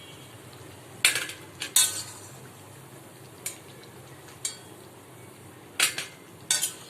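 Kitchen utensils clinking against cookware, about nine sharp clinks in irregular clusters over a steady low hum.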